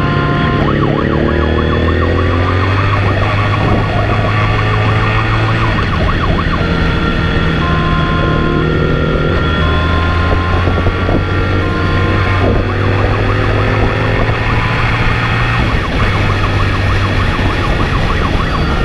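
Police motorcycle riding fast with its siren on, switching between a two-tone call and a fast warbling yelp over steady engine and road noise. The engine pitch climbs several times as it accelerates.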